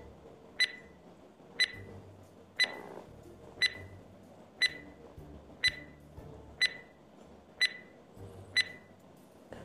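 Countdown-timer sound effect: a short, high-pitched beeping tick once a second, nine times, as a ten-second stopwatch counts down.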